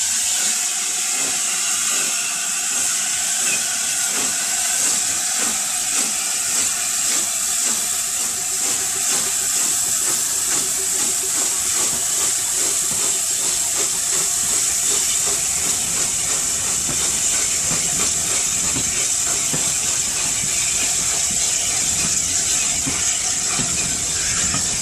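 LNER A4 steam locomotive 4464 Bittern passing and pulling away with its train, giving a loud, steady hiss of steam. A low rumble from the passing train comes in after about ten seconds.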